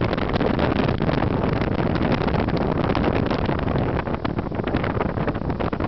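Wind buffeting the camcorder microphone over the steady rumble of a vehicle driving, a dense rough noise that flutters irregularly throughout.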